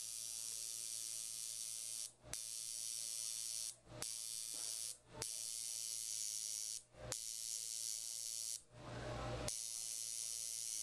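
Permanent makeup tattoo machine running with a steady high-pitched buzz as it implants eyeliner pigment along the upper lash line. It cuts out for a fraction of a second five times.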